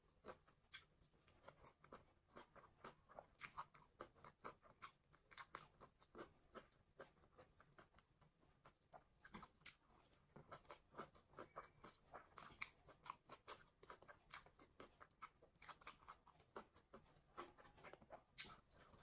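Faint close-up chewing of fried rice and shredded cabbage salad eaten by hand: a rapid, irregular run of crunches and mouth clicks.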